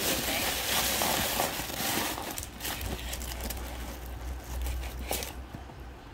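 Plastic wrapping crinkling and rustling as a handbag in its packaging is handled. It is dense for about the first two seconds, then comes in short scattered rustles, with a last sharp crinkle about five seconds in.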